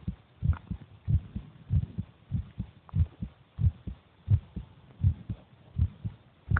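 A person's heartbeat: low double thumps (lub-dub) repeating steadily at roughly one and a half beats a second.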